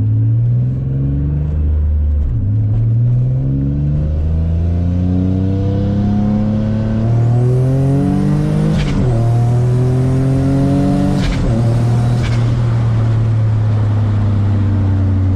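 Turbocharged 3.5-litre V6 of a Nissan G35 accelerating through the gears. Its pitch climbs and drops sharply at gear changes about two, nine and eleven seconds in, with brief sharp noises near the later shifts, then holds a steadier pitch toward the end.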